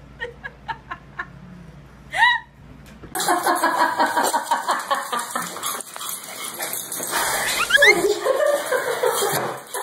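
Small dog yipping and whining excitedly, a dense run of high yelps with a rising whine near the end. Before it come a few soft ticks and one short falling cry.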